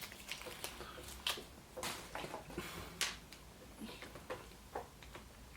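Small plastic toy pieces and wrapping from a Kinder Surprise egg being handled: scattered light clicks and crinkles, a few sharper ones in the first three seconds.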